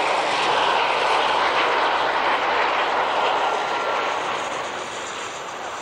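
Lockheed C-130 Hercules's four turboprop engines and propellers, loud and steady as the transport passes low along the runway, then fading gradually over the last couple of seconds as it climbs away.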